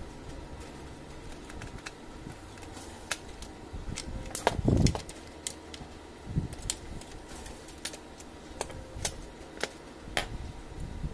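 Irregular clicks and knocks of a screwdriver and plastic housing parts as an HP LaserJet 4515 fuser assembly is pried at and turned over by hand, with a louder knock about halfway, over a low steady hum.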